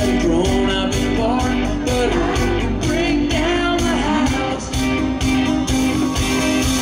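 Live amplified country band playing a song, with drums and guitars, and a voice singing over the band.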